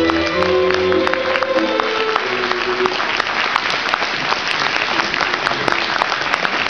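Audience applause that breaks out as a piece of music ends; the music's last held notes die away about two to three seconds in, and the clapping carries on steadily after.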